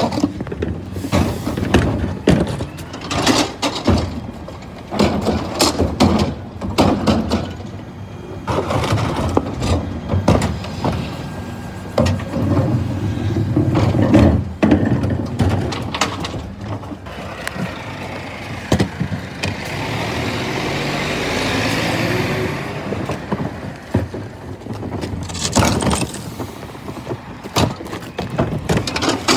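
Rear-loading refuse truck (2017 P410 with an Olympus twin-pack body) collecting wheelie bins: plastic bins knock and clatter as they are wheeled and tipped on the bin lift. The truck's lift and packing gear run with a steady rush for several seconds past the middle, and a short hiss comes near the end.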